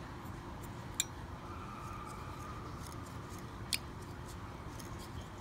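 Low room hiss with two faint ticks about three seconds apart: small handling sounds of a bobbin and thread as thread is wrapped over mono weed-guard pieces on a jig held in a fly-tying vise.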